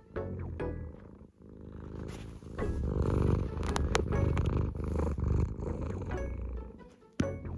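Scottish Fold cat purring close against the microphone, a dense low rumble, with a few sharp clicks and sniffs about three to four seconds in as it noses the phone.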